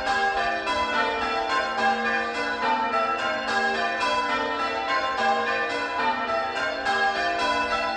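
A ring of six church bells (tenor about 8 cwt, in G) being rung in change ringing: an even, continuous run of strokes, about three or four a second, each bell's tone carrying on into the next. The ringer calls these bells odd struck.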